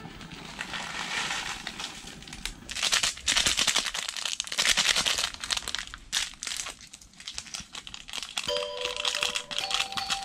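Plastic ramen seasoning packets crinkling as they are handled and torn open. Background music comes in near the end.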